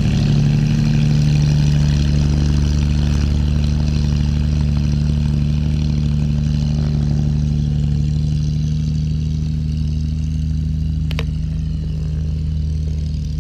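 Corvair-conversion air-cooled flat-six aircraft engine of a homebuilt Saberwing running steadily at taxi power on its first taxi test, slowly getting fainter as the plane moves away.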